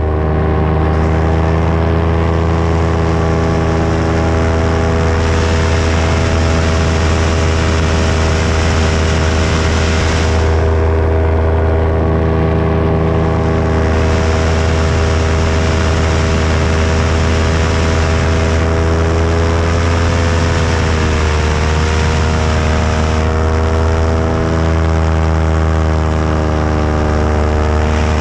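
Paramotor engine and propeller running steadily. Its pitch sags slightly about twenty seconds in and again a few seconds later.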